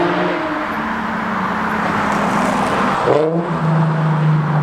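Car engine running through an exhaust with the muffler deleted, with a quick rev about three seconds in before holding a steady note.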